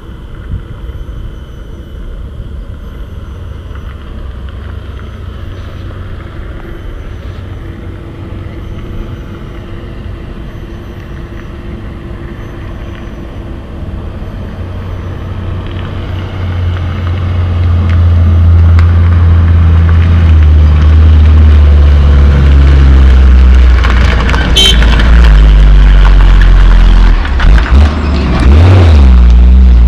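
Diesel engine of a tandem-axle Hino coal dump truck on a muddy dirt haul road, growing from a distant rumble to loud as it comes close. Near the end its engine note drops in pitch as it passes.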